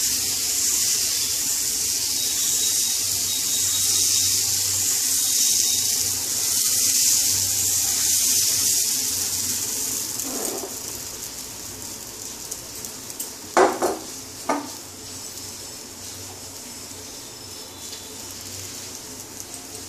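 Dosa batter sizzling on a hot oiled frying pan as the back of a ladle spreads it into a round. The sizzle is loud for about the first half, then settles to a quieter hiss, with three sharp knocks a little after the middle.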